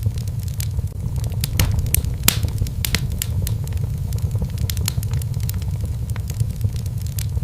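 Wood fire burning in a fireplace: a steady low rumble of flames with irregular sharp crackles and pops, a few louder pops around two to three seconds in.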